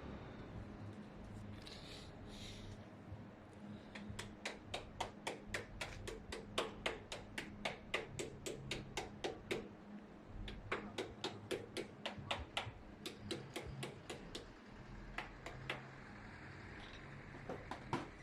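Runs of quick, evenly spaced mechanical clicks, about four a second, that stop and start again several times.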